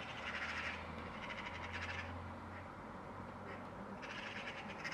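Eurasian magpies chattering: harsh, rapid rattling calls in several bouts, loudest just after the start and again near the end. A faint low hum runs under the first half.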